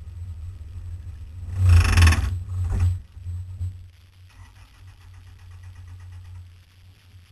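Off-road vehicle's engine running low as it crawls over rock. About a second and a half in there is a loud, rough burst of noise lasting under a second, with a few smaller flare-ups after it, and then the sound settles quieter.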